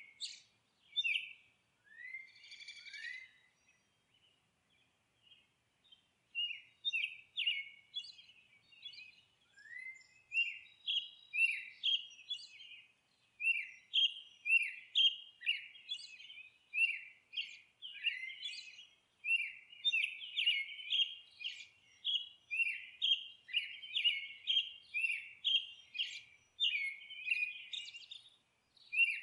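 Birds chirping: quick, short, high chirps that mostly fall in pitch, repeated several times a second, with a brief lull about four seconds in.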